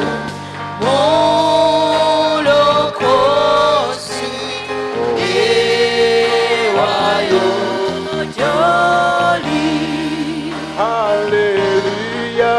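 Gospel worship singing: voices holding long notes with vibrato and sliding between pitches over steady instrumental backing.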